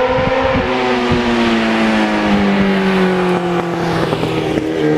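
Kawasaki Ninja sport motorcycle riding toward and past the microphone, its engine note falling slowly in pitch. The tone changes abruptly near the end as the bike draws level.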